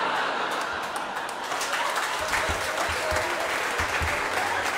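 Audience applause: many hands clapping in a steady, dense patter.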